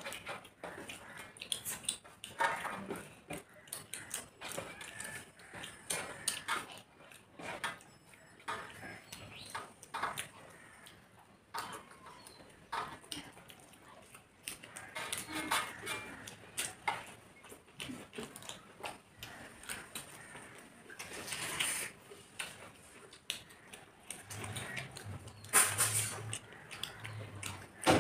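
Two people eating biryani by hand from metal plates: irregular chewing and lip-smacking with fingers scraping rice on the plates, a few louder smacks near the end.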